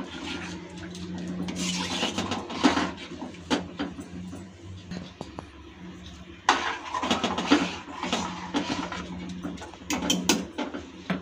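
Metal ladle stirring and scraping through sambar in a dark-coated kadai, with scattered clinks of the ladle against the pan, over a steady low hum.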